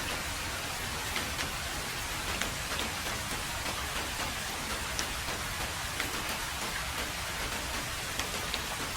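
Heavy rain falling steadily on a road surface: an even hiss of rainfall with scattered sharp ticks of single close drops.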